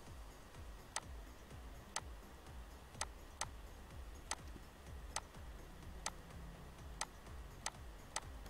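Computer mouse clicks: about ten short, sharp clicks, roughly one a second and not quite evenly spaced, over a faint low hum.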